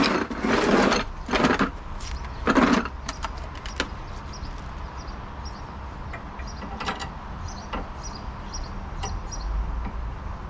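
Hand work with tools on a car's front suspension: a few short scraping sounds in the first three seconds, then scattered light clicks and taps of metal.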